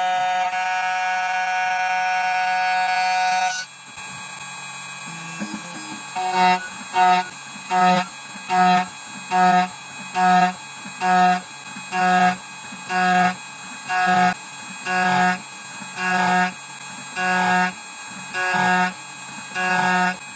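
2m2tank CNC key cutting machine running a cut: a steady motor whine for the first few seconds, then breaking off. From about six seconds in, short whirring pulses of the same pitch repeat a little more than once a second as the machine steps through the cut.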